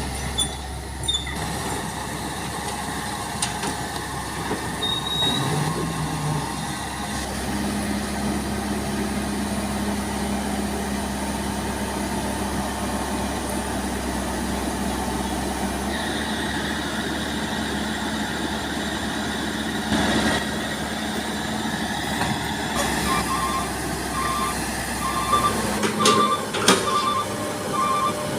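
Long-reach excavator's diesel engine running steadily under load as the machine hauls itself up onto a trailer truck. Near the end a backup alarm beeps repeatedly, a few beeps a second.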